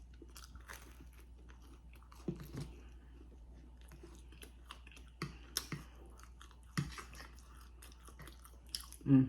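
A person chewing food close to the microphone: a run of irregular soft mouth clicks with a few louder crunchy bites.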